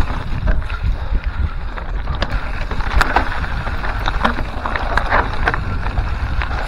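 Mountain bike riding over a rocky singletrack: wind buffeting the camera microphone as a constant low rumble, with tyres crunching over stones and scattered sharp clicks and knocks from the bike rattling.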